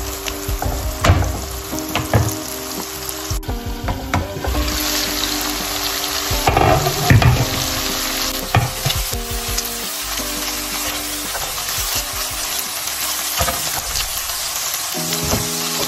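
Chopped tomatoes, onion and peppers sizzling in oil in a nonstick frying pan while a silicone spatula stirs and scrapes through them. The sizzle grows louder about four seconds in and then holds steady.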